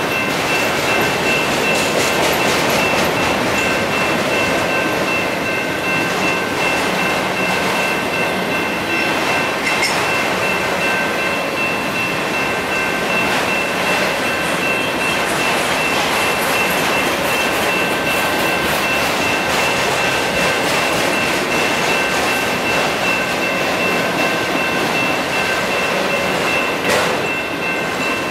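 Autorack freight cars rolling steadily through a railroad grade crossing, with continuous wheel-on-rail noise. The crossing's electronic bells ring without a break, which they do while the gates are down.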